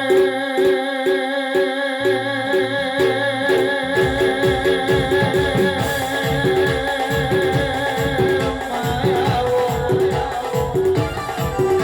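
Live folk music, instrumental: a sustained, slightly wavering melody line over a repeating pulsed note, joined about four seconds in by a steady drum beat.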